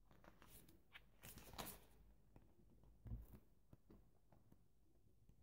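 Near silence with faint rustling and light handling noises from a craft product being handled and looked through, and a soft bump a little after three seconds in.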